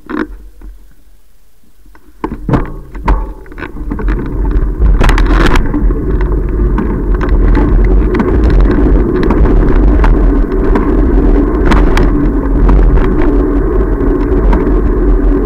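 Wind and road rumble on a bicycle-mounted camera as the bike sets off and gathers speed. A few knocks and clicks come in the first few seconds, then a loud, steady low rumble settles in from about four seconds in.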